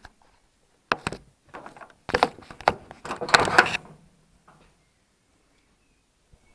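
A few sharp knocks about a second in, then a cluster of clunks and knocks between two and four seconds, then quiet handling.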